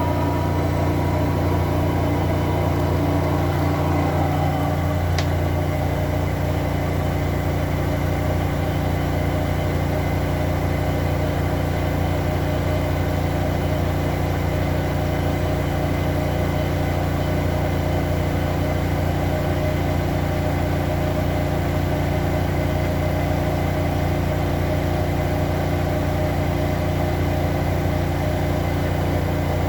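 Zanker EFX 4875 front-loading washing machine in its final spin, set to 1800 rpm: the drum and motor run at a steady high speed with an even, constant hum.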